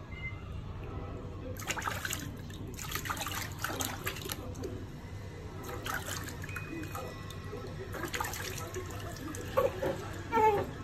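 Water splashing and sloshing in a plastic baby bathtub as a hand scoops water over a newborn's back, in irregular bursts. Near the end a voice starts up, louder than the splashing.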